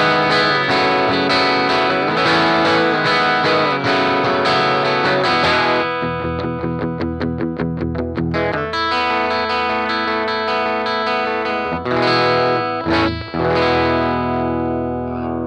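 2013 Rickenbacker 330 electric guitar with toaster pickups, played in the classic bright, jangly Rickenbacker style. It starts with strummed chords for about six seconds, moves to a quick run of picked notes, then plays a few more strummed chords, and the last chord is left ringing out.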